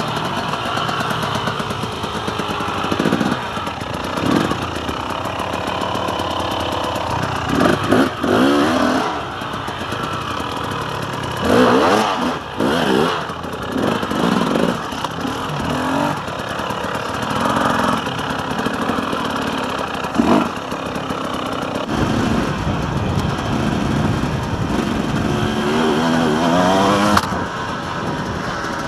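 KTM 300 EXC two-stroke enduro bike's engine being ridden, the revs rising and falling again and again.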